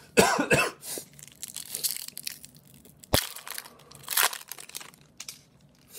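Foil wrapper of an Upper Deck hockey card pack crinkling and tearing as it is opened by hand, in a string of crackly bursts, with a sharp snap about three seconds in.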